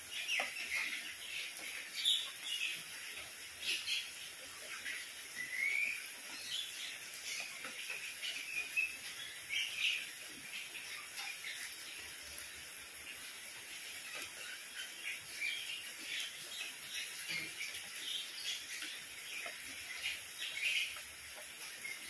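Steady rain falling on paving and garden foliage, with songbirds chirping throughout in short, high calls; one rising call stands out about five seconds in.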